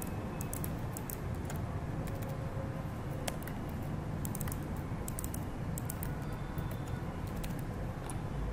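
Typing on a computer keyboard: irregular runs of quick keystrokes over a steady low hum.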